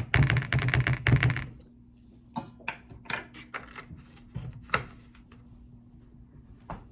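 Kitchen containers and utensils being handled: a loud, rapid rattling burst in the first second and a half, then scattered light clicks and taps.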